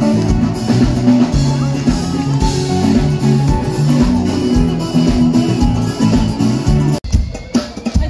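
Live band music through a loudspeaker system: held bass and guitar notes over a drum beat. About seven seconds in the sound breaks off abruptly and comes back as a run of loud drum hits.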